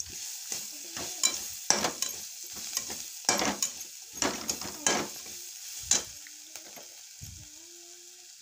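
Wooden spatula scraping and stirring chopped onions, tomatoes, green chillies and crushed peanuts in a metal kadai, over a steady sizzle of the mix frying in hot oil. The scraping strokes come irregularly and stop about six seconds in, leaving the sizzle alone.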